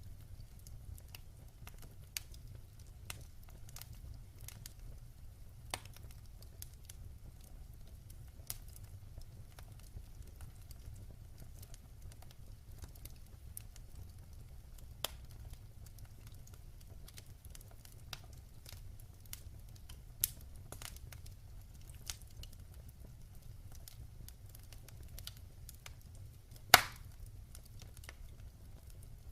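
Wood fire burning in a fireplace: a low steady rumble of flames with scattered sharp crackles and pops, and one loud snap near the end.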